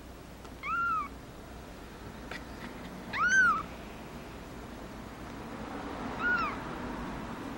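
Three-day-old kitten mewing three times, short thin cries that rise and fall in pitch, the middle one the loudest.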